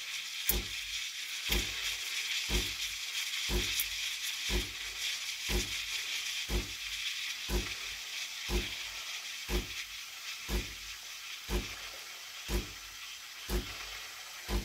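Steam hissing from a DeLonghi Dedica EC685's steam wand submerged in milk in a stainless steel pitcher, heating the milk, with a short low thump about once a second from the machine pulsing as it feeds the steam.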